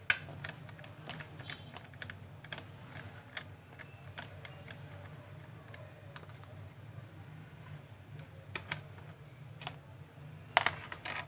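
Screwdriver turning a small screw out of a handheld metal detector's plastic housing: scattered light clicks and ticks, with a louder clatter about ten seconds in, over a low steady hum.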